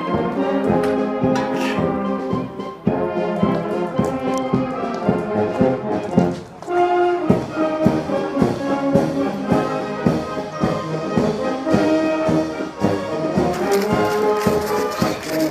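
Background music: brass-led orchestral tune over a steady beat.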